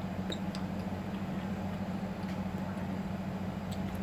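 A steady low hum, like a machine or appliance running, with a few faint light clicks.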